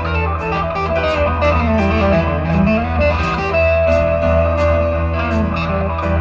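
Live rock band playing: electric guitar lead with bent notes over bass, keyboards and drums, a cymbal struck on a steady beat about every 0.7 seconds.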